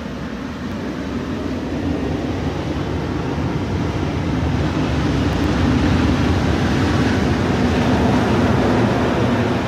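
Ocean surf and wind buffeting the microphone: a steady rumbling noise that swells over the first several seconds, then holds.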